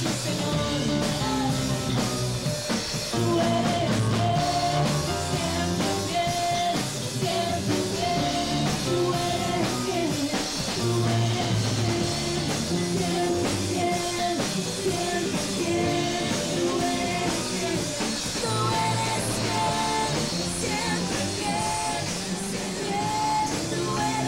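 Live worship band playing a praise song: electronic keyboard, drum kit and bass guitar, with voices singing along.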